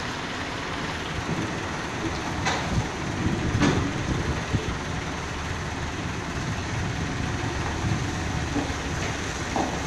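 A heavy vehicle hauling a house on a trailer: a steady low rumble of engine and rolling wheels, with two sharp knocks about a second apart a few seconds in.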